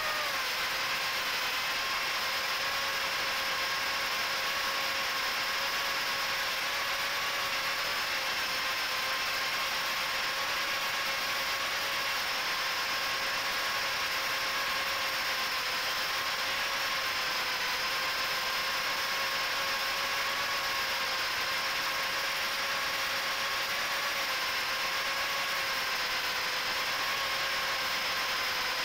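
Micro FPV quadcopter's HGLRC 1104 7500kv brushless motors spinning Gemfan 3018 props in flight: a steady, buzzing whine with a hiss of prop wash, its pitch dipping briefly right at the start and wavering slightly with throttle.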